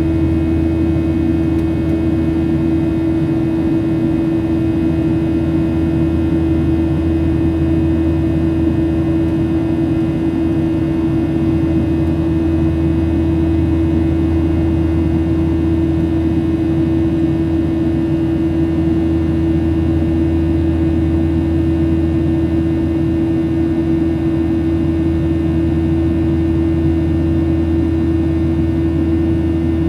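Steady cabin noise inside a Boeing 737-800: an unchanging drone with one clear, steady mid-pitched tone over it.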